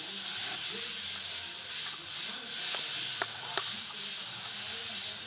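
Steady high-pitched background hiss, with three short sharp clicks a little past halfway and faint voices underneath.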